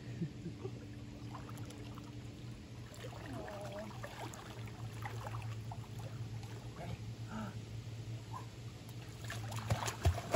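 Swimming-pool water sloshing and lapping around a person wading, over a steady low hum. Near the end, louder splashing as an Australian Shepherd puppy is set into the water and starts paddling.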